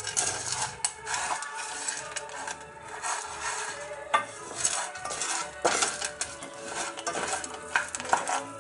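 A utensil stirring unpopped popcorn kernels in a pan on the stove, with repeated clinking and scraping against the pan and a light sizzle. The kernels have not started popping yet.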